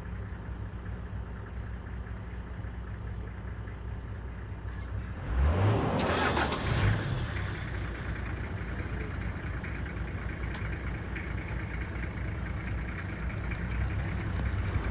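Safari vehicle's engine running at idle, with a louder rising surge lasting about a second and a half about five seconds in, typical of the engine starting or being revved, then settling back to a steady run.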